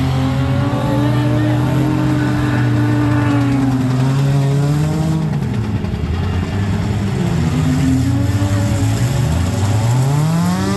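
Demolition-derby compact car engines revving hard, their pitch rising and falling over and over as the cars push and ram in the dirt, with one long rising rev near the end.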